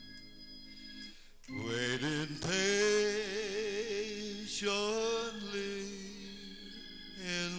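A man singing long held notes with a wavering vibrato into a microphone over sustained keyboard chords. The voice comes in about a second and a half in and swells again near the end.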